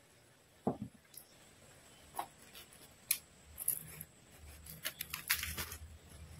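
A soft thump about a second in, then scattered clicks and a dense run of crisp crackling as a puffed, deep-fried poori is lifted and torn apart by hand.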